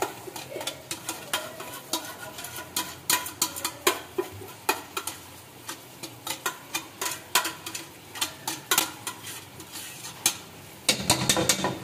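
A spoon tapping and scraping against a cooking pan in many irregular sharp clicks as leftover chicken keema is added to the sauce, with a louder, busier stretch near the end.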